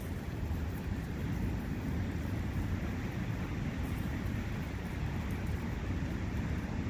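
Steady wind and a running brook in a forest, an unbroken noise heaviest in the low end.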